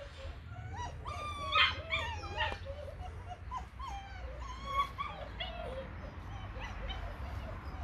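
Belgian Malinois puppies whimpering and yipping in short, rising-and-falling whines, loudest and most frequent about one and a half to two and a half seconds in.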